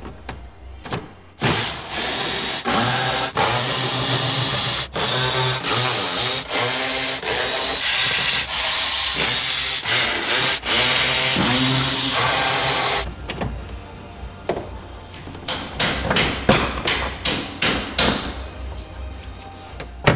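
Cordless drill-driver running in bursts as it spins out the 4 mm Allen fasteners holding a fender liner. From about 13 s it gives way to a run of quieter clicks and knocks.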